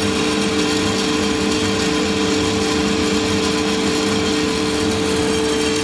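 Santoker R6 drum coffee roaster running: a steady mechanical hum and hiss with beans tumbling in the drum, and faint crackling as second crack is just beginning.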